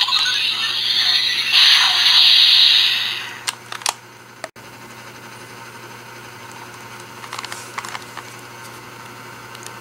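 Ben 10 Omnitrix toy playing an electronic hissing sound effect from its small speaker for about three seconds as its glowing core is pressed down, then two sharp plastic clicks as the lid snaps shut, followed by faint handling ticks.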